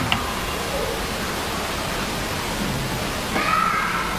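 A steady, even hiss with a single sharp click at the very start.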